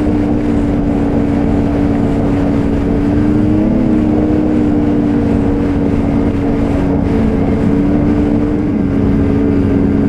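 Ski-Doo Renegade XRS 850 snowmobile, its 850 two-stroke twin running at a steady cruising speed with a rush of wind and track noise. The pitch wobbles briefly about four seconds in and dips slightly near the end.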